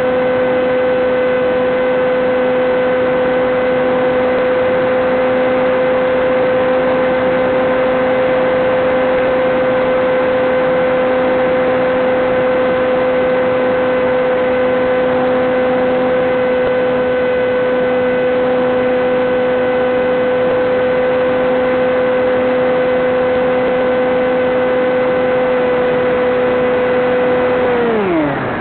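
Electric motor and propeller of a Teksumo FPV flying wing running at steady cruise throttle: a steady pitched drone over rushing air hiss. Near the end the pitch dives sharply as the throttle is pulled back, then levels off lower.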